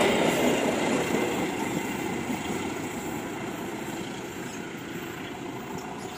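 Train coaches rolling along the rails away from the listener, a steady running noise that fades gradually as the last car recedes.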